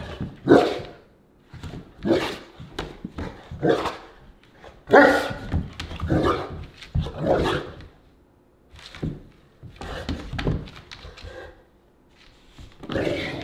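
Cane Corso dogs, an adult and a puppy, barking in short irregular bursts during a play fight.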